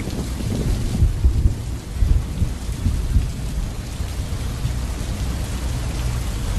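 Steady rain falling, with low thunder rumbling underneath that swells a couple of times in the first half.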